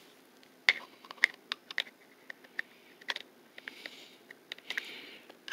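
Irregular light clicks and taps of cable plugs being handled and fitted into a port on top of a handheld IP camera tester, with a soft rustle a little past the middle.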